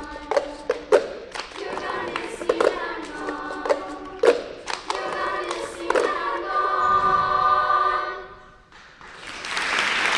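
Girls' treble choir singing over the rhythm of plastic cups tapped and slapped on the stage floor, ending on a long held chord about six seconds in that fades away. Applause breaks out near the end.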